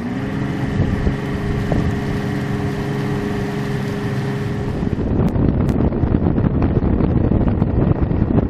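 Bass boat's outboard motor running at speed, a steady engine drone, with wind buffeting the microphone. About five seconds in it gives way to a rougher rush of wind and water over the engine.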